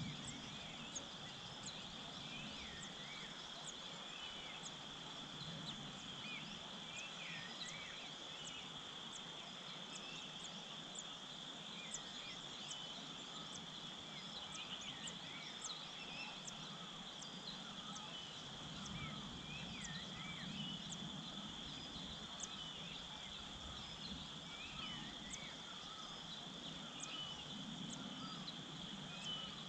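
A steady high insect drone, with repeated short wavering bird chirps and calls over it.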